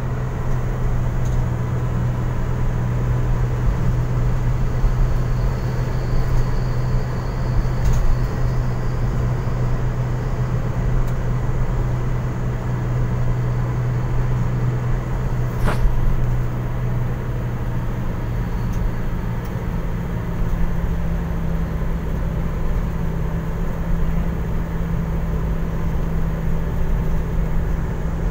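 Steady engine and road noise heard inside a moving car's cabin, a continuous low hum whose note shifts a little higher about two-thirds of the way through. One sharp click a little past the middle.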